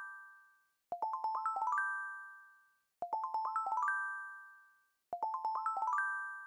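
A short chime jingle: a quick rising run of bell-like notes that ring out, played three times about two seconds apart.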